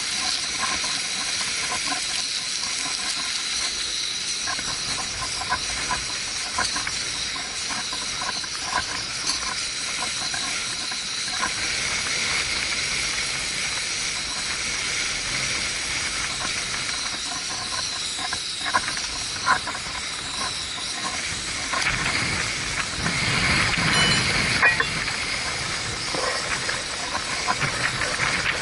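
Backpacking stove burner hissing steadily under a pot of water coming to the boil, with small irregular clicks from a hand can opener being worked around a can. Past the middle a gust of wind rumbles on the microphone for a few seconds.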